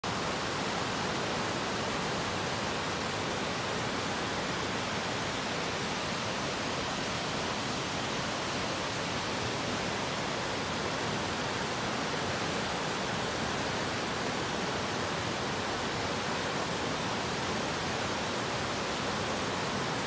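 River water rushing steadily over a low rocky cascade, an even, unbroken white-water noise.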